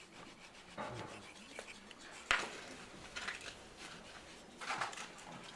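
A wooden branch scraping and rubbing against carved stone as it is pressed on and test-fitted over a screw, with one sharp knock a little over two seconds in.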